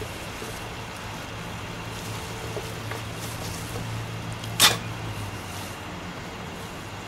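Steady low hum of a vehicle engine running, easing slightly about five seconds in. A single sharp knock about four and a half seconds in stands out as the loudest sound.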